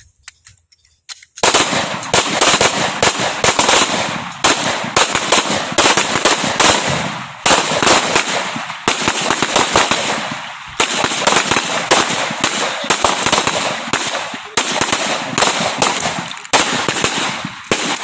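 Several pistols firing at once on a shooting range at 15 meters. The shots begin about a second and a half in and come so fast and overlap so much that they run together with only brief pauses, loud and echoing.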